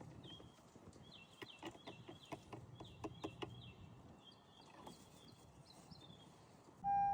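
Faint, quick chirping of a small bird, repeated over and over, with light clicks mixed in. Near the end a steady electronic chime tone from the car starts up.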